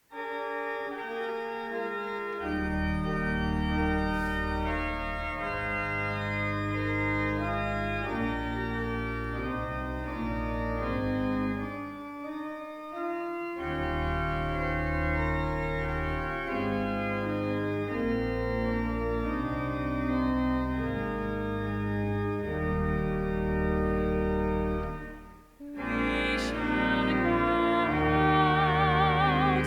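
Organ playing slow sustained chords, with a deep pedal bass coming in about two seconds in. The music breaks off briefly near the end, then resumes fuller, with a wavering vibrato on the upper notes.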